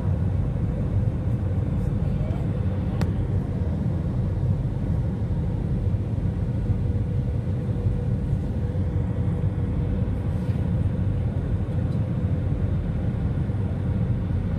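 Steady cabin noise inside an Airbus A320 airliner in flight: a deep, even rumble of engines and airflow with a faint steady hum over it.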